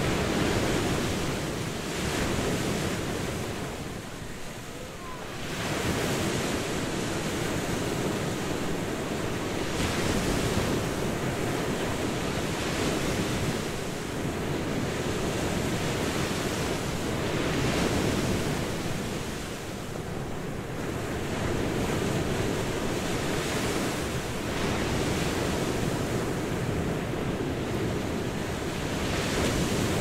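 Ocean surf: waves breaking and washing in without a break, swelling and easing every few seconds, with a brief lull about four seconds in and another near twenty seconds.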